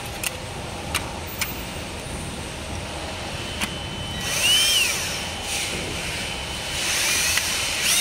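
Cordless drill-driver run in short bursts on a screw at a scooter's front wheel, its motor whine rising and falling each time, first about four seconds in and again near the end. A few light clicks before it.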